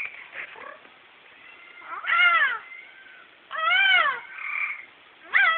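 Parrot calling: about four drawn-out, meow-like calls, each rising and then falling in pitch, coming in the last few seconds with short pauses between them.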